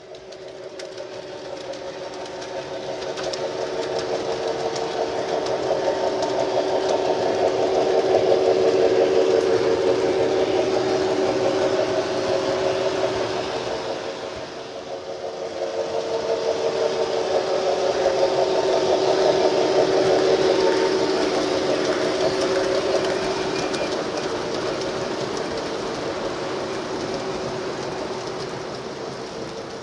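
O scale model trains running on three-rail track: a steady hum of electric motors and wheels rolling on the rails. It swells twice as trains pass close, with a brief dip between.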